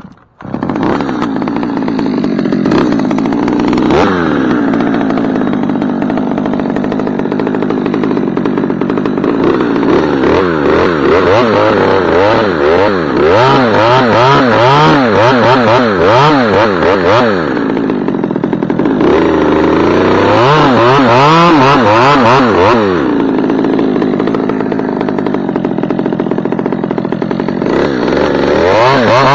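Husqvarna two-stroke chainsaw running hard while cutting through a large dead ash limb, its engine speed rising and falling rapidly over and over in two long stretches as the bar works the cut.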